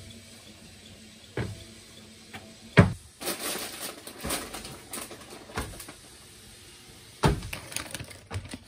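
Irregular thumps and rustling of a person moving about right next to a camera on the floor, with a few sharp knocks, the loudest about three seconds in and another about seven seconds in.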